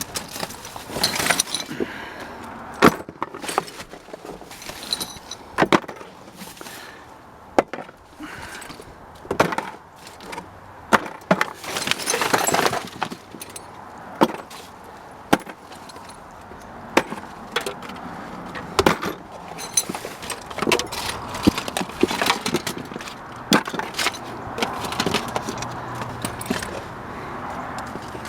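Irregular clatter of knocks and clunks from junk and scrap being shifted and handled in a dumpster, with a longer scraping rustle about twelve seconds in.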